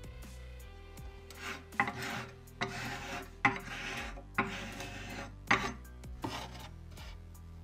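Wide steel filler knife scraping along the joint of a Sapele hardwood shelf in repeated short strokes, roughly one or two a second, pressing sawdust-and-lacquer filler into the gap. Quiet background music runs underneath.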